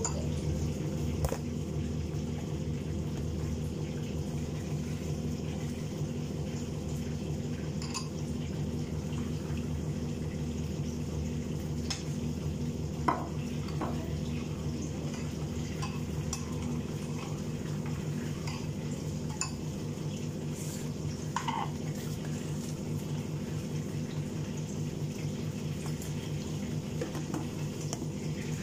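Metal spatula stirring food in a frying pan on a gas stove: scattered clinks and scrapes of the spatula on the pan, over a steady low hum.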